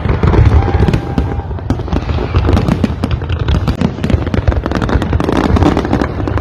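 Fireworks going off in a rapid, continuous barrage: dense crackling pops over a deep rumble of bursting shells, loud.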